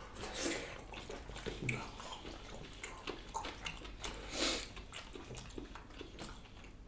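Close-miked eating sounds: chewing and soft mouth clicks, with a couple of brief louder noisy swells, the strongest about four and a half seconds in.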